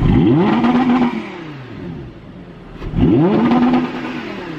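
Audi R8's 5.2-litre V10 engine revved twice, about three seconds apart, each rev climbing quickly in pitch and then falling back to idle.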